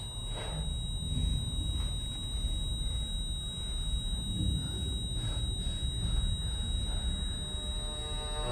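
Low, steady rumble of background ambience, with a few faint, soft, brief sounds and a thin steady high tone over it.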